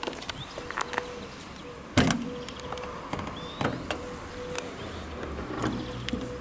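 Clicks and knocks from the Porsche 911's front luggage lid being unlatched and raised, with one sharp, loud knock about two seconds in. Faint bird chirps.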